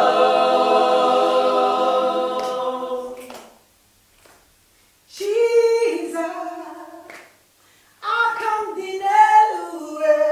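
Unaccompanied voices singing a worship song together, holding a chord that fades out. After a short pause a single woman's voice sings a phrase alone, breaks off briefly, and sings on.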